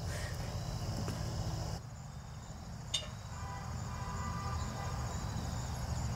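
Crickets chirping steadily in the grass, a high pulsing trill over a low rumble, with a single click about three seconds in.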